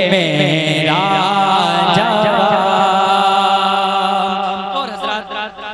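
A man singing a naat in long, wavering held notes, the sung line fading out near the end. A steady low tone sits underneath.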